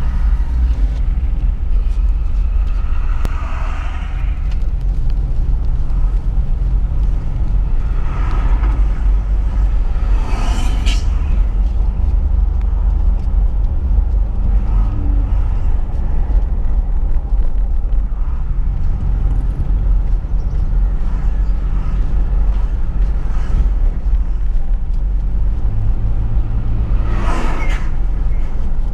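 Steady low road and engine rumble heard inside a moving car's cabin, with brief louder rushes of passing traffic about ten seconds in and again near the end.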